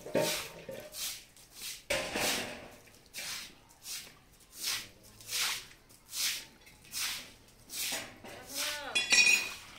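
Rhythmic rubbing strokes, evenly repeated about once every 0.7 seconds, with a brief higher, voice-like sound near the end.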